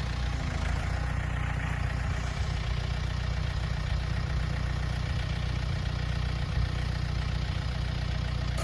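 Farm tractor engine running steadily at a low, even speed while its grapple maneuvers a log.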